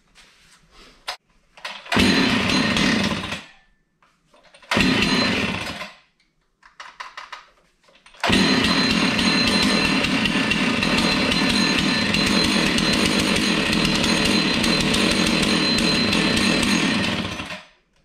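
Husqvarna two-stroke gas chainsaw being started: twice it fires loudly for a second or so and dies away, then about eight seconds in it catches and runs steadily for about nine seconds before stopping near the end.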